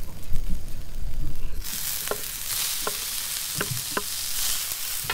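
Butter sizzling in a cast iron frying pan, a steady high hiss that comes in suddenly under two seconds in, with a few sharp clicks over it. Before that there is a low rumble.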